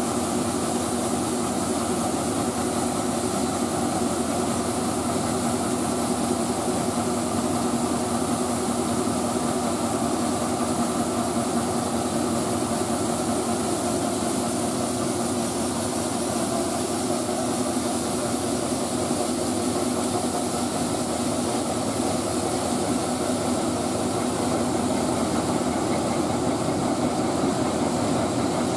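Heavy farm machinery engine running steadily at constant speed: an even drone with no change in speed.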